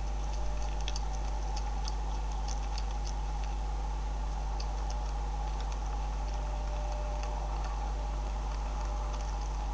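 Beavers chewing corn and seed feed: irregular sharp crunching clicks, several a second, over a steady low hum.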